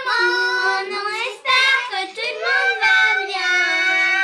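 Children singing in high voices, with long held notes that slide up and down in pitch and two short breaks.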